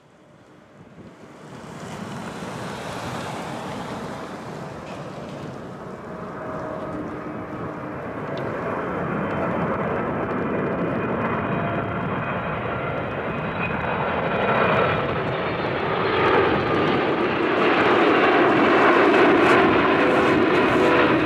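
Boeing 777-300ER airliner on landing approach, its two GE90 turbofans running at low approach power. The jet roar and steady fan whine grow steadily louder as it comes in toward overhead, loudest near the end.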